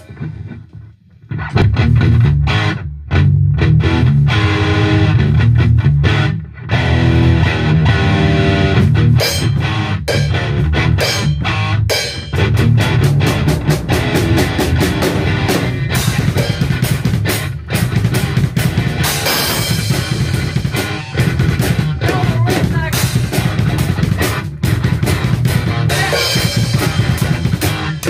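Loud rock music with a drum kit and guitar, starting about a second and a half in.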